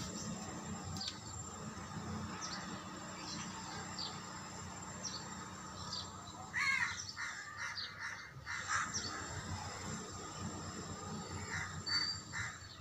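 Crows cawing outdoors, a few loud caws in the second half, with short high bird chirps earlier and a steady low background hum.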